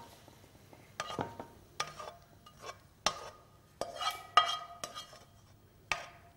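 A spatula scraping and knocking against a wok as cooked karahi is scraped out into a serving dish: about a dozen short scrapes and taps at an uneven pace, several ringing briefly.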